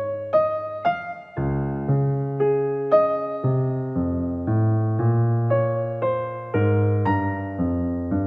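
Background music: a gentle piano tune of single notes, about two a second, over held bass notes.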